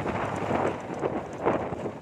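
Wind buffeting the microphone on a moving bike: an uneven rushing, with louder gusts about half a second and a second and a half in.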